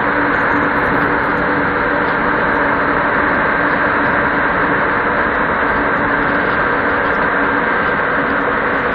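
PKP Cargo ET22 electric locomotive running close by, its cooling blowers giving a loud, steady rushing whir with a few steady humming tones through it.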